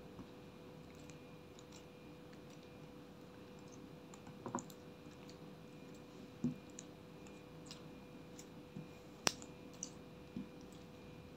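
Clear slime, mixed with crushed makeup, squeezed and kneaded by hand in a glass dish: scattered small sticky clicks and pops. The sharpest snap comes a little past two thirds of the way in.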